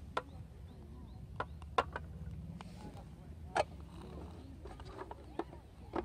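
Metal mess tin and its lid being handled and fitted, with a scatter of sharp metal clicks and taps, the loudest pair near the end, over a steady low rumble.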